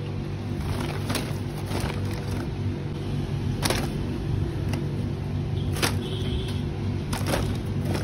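Plastic drink bottles knocking against each other as they are packed into a shopping bag: about six short, sharp knocks spread across the few seconds, over a steady low hum.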